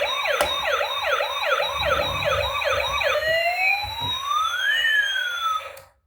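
Electronic siren of a battery-operated toy emergency vehicle: a fast yelp sweep repeated about three times a second, then two long gliding tones, one rising and one falling, crossing each other. It cuts off suddenly near the end.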